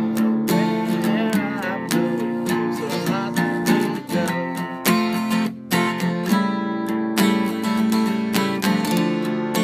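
Acoustic guitar strummed in a steady rhythm, about four strokes a second, playing through a chord progression.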